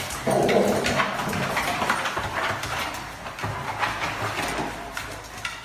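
A small dog scrabbling about on a tiled floor and doormat: its claws click and scuff in quick irregular runs, with a louder rough scuffling in the first second.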